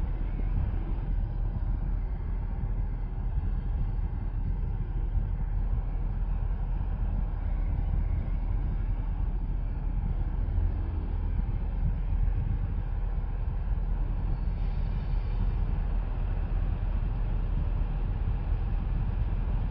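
Steady low rumble heard inside a parked car's cabin, typical of the car's engine idling.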